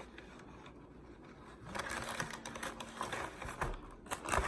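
Food packaging being handled: a run of small crackles and taps starting about two seconds in.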